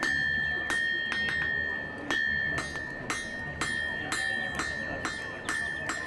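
Hammer striking iron on an anvil, about two blows a second at an uneven pace, each a sharp metallic clang, with the anvil ringing on in a steady high tone between blows.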